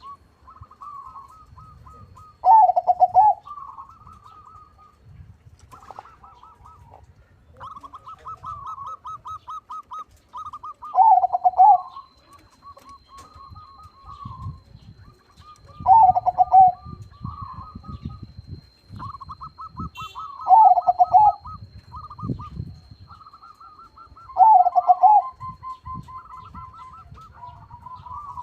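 Crossbred zebra dove (perkutut crossing) singing its loud cooing song: five short phrases a few seconds apart, with fainter rapid stuttering calls between them.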